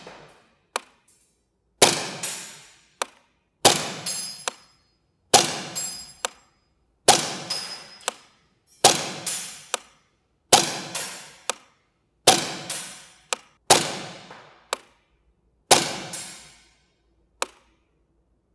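Umarex Beretta PMX gas-blowback airsoft submachine gun (by KWA) firing nine single semi-auto shots about two seconds apart, each with a short echoing tail. A shorter, sharper click comes about a second after several of the shots.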